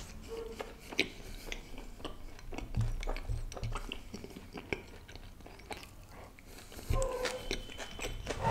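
Close-miked chewing of a mouthful of butter chicken: wet mouth clicks and smacks scattered throughout. Near the end comes a short closed-mouth hummed 'mm'.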